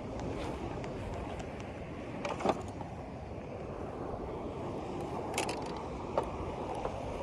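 Steady noise of wind and water on the open water, with a few sharp clicks of handled gear about two and a half, five and a half and six seconds in.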